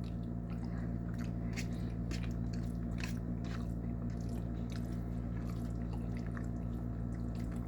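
A person chewing a mouthful of chicken spaghetti, with small wet mouth clicks and smacks scattered throughout.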